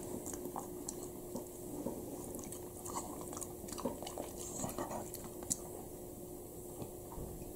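Shiba Inu chewing dry kibble: faint, irregular crunches and clicks of the pellets breaking, spread through the whole stretch.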